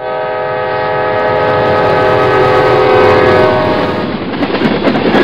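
Diesel locomotive air horn sounding one long multi-note chord as a freight train passes close by. The horn fades out about four seconds in, leaving the rumble and rattle of the passing freight cars.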